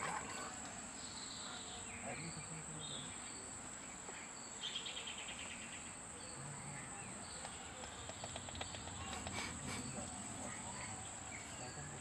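Insects singing a steady, unbroken high-pitched drone, with short pulsed chirps now and then.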